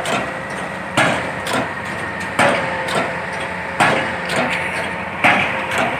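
Hammer blows striking at a slow, even pace, four in all, about one every second and a half, each with a short ringing tail, over a steady background hum.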